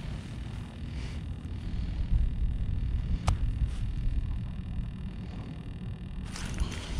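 Low, steady wind rumble on the microphone, with a single sharp click about three seconds in and a hissing rush starting near the end.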